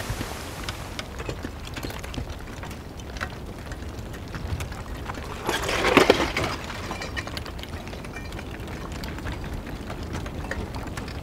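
Lava crackling: scattered sharp cracks and snaps of cooling lava crust over a low rushing background, with a louder burst of crackling about six seconds in.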